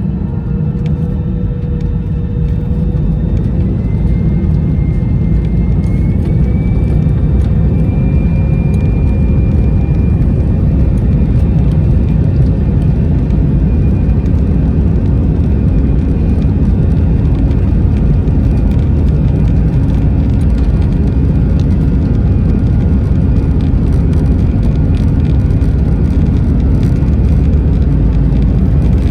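Airbus A319 cabin noise at takeoff: the jet engines' whine rises in pitch over the first several seconds and then holds, over a loud, steady rumble as the airliner runs at takeoff thrust.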